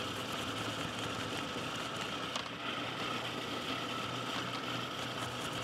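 Food processor motor running steadily, grinding soaked almonds, peanuts and dates into a paste, with faint scraping of an apple on a metal box grater.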